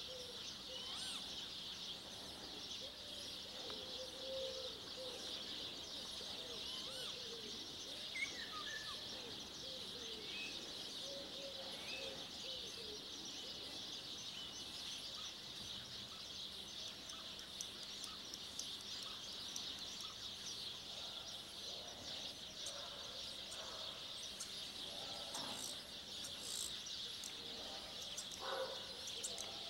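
Male spotless starling singing: a faint, rambling run of sliding whistled notes, over a steady high chirring in the background.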